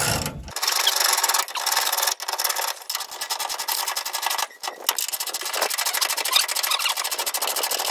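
Socket ratchet clicking in fast runs, with short pauses between strokes, as the nut on a new leaf-spring shackle bolt is tightened.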